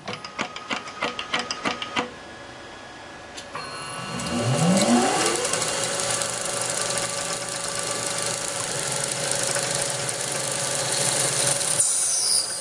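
Small CNC lathe working: a rapid run of sharp clicks for the first two seconds. About four seconds in, the spindle motor spins up with a rising whine, then runs at steady speed until near the end.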